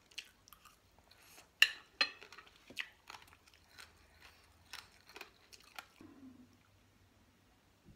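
Close-up chewing of a spicy rice-noodle salad with fresh raw vegetables: wet mouth sounds and sharp crunches, the loudest about one and a half to two seconds in. About six seconds in the crunching stops and a sip of water is swallowed, then it goes quiet.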